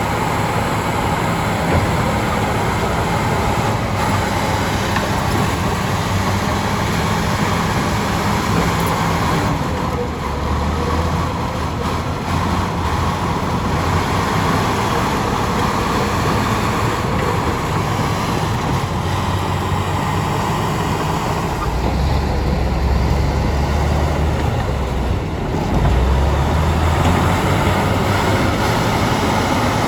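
Bulldozer diesel engines running steadily under load, growing louder in the low end for a few seconds about three quarters of the way through.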